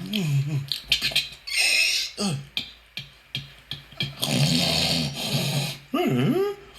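A person making sound effects with the mouth: gliding, wordless vocal whoops, a run of sharp clicks, and a long hissing noise.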